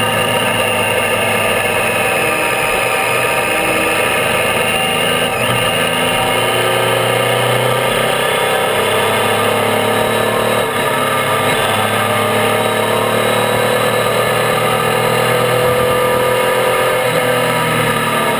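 Triumph Tiger 800's three-cylinder engine running under way on a climbing road. Its pitch sags a little early on, rises slowly through the middle and drops again near the end as the rider rolls on and off the throttle. Steady wind and road noise run underneath.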